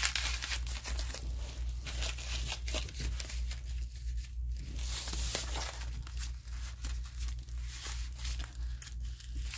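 Packing paper and protective wrapping on a new handbag crinkling, rustling and tearing in irregular bursts as it is pulled out of the bag and peeled off the strap. A steady low hum runs underneath.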